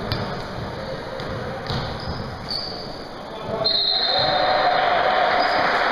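A basketball dribbled on a gym floor, its bounces echoing in the hall, with players' and spectators' voices; the voices grow louder a little past halfway.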